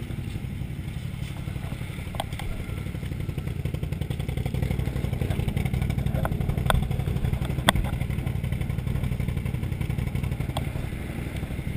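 Can-Am Outlander XMR 1000R ATV's V-twin engine idling steadily, with a few sharp knocks over it.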